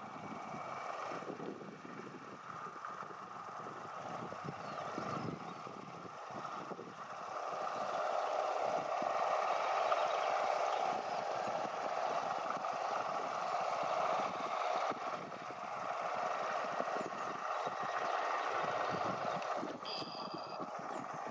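John Deere 5100M diesel tractor running while pulling a Welger RP 200 round baler, with the baler's steady clatter and rattle over the engine. It gets louder about eight seconds in.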